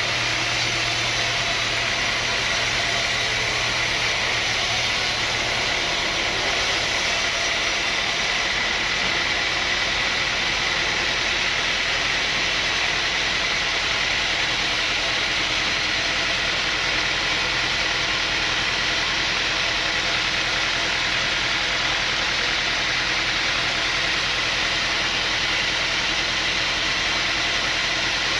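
Sawmill machinery running steadily: a continuous mechanical drone with a dense hiss, its low hum fading about six seconds in.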